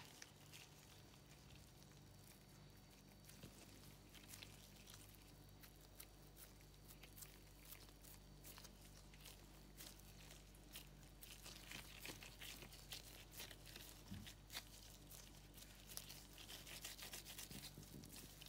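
Faint soft crackling and squishing of gloved hands pressing and shaping potato-bulgur dough around a minced meat filling, busier in the second half, over a low steady hum.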